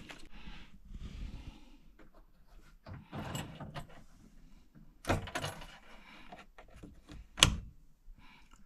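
Intermittent handling noises from parts and tools: light rustles, clicks and small knocks, with one sharp click near the end.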